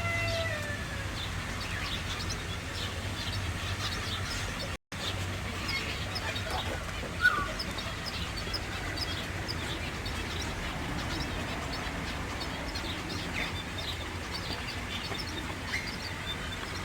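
Many birds chirping and calling together, a dense scatter of short high chirps, with one louder, sharper call about seven seconds in. A steady low hum runs underneath, and the sound drops out briefly near five seconds.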